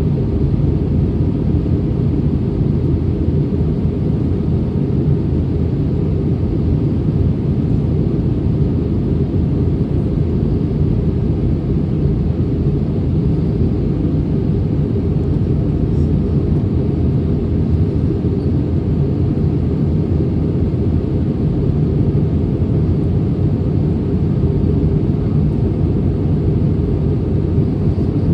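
Steady low rumble of an Airbus A320neo's engines and airflow in flight, as heard in the passenger cabin, holding even throughout.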